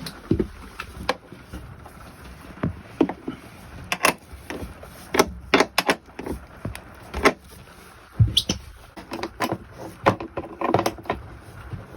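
Irregular clicks, knocks and clunks of hand work as a new RV toilet is set on its floor flange and the nuts are fitted to its flange bolts, with one heavier low thump about two-thirds of the way through.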